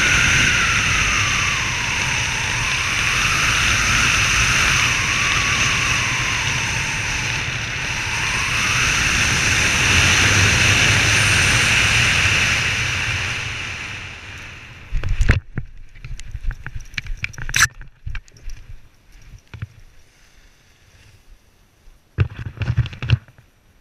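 Wind rushing over the camera microphone as a parachutist flies a ram-air canopy down to land, with a whistle that slides up and down in pitch. The wind dies away about fourteen seconds in. A thud follows at touchdown, then scattered rustles and knocks of canopy fabric, lines and gear on the grass.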